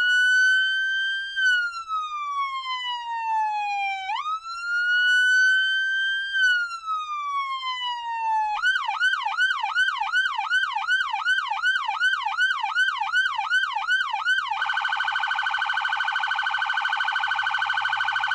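Police car's electronic siren: two slow wail cycles, each rising and then falling over about four seconds, then switching to a fast yelp of about three rises a second, and near the end to a very rapid, shrill warble.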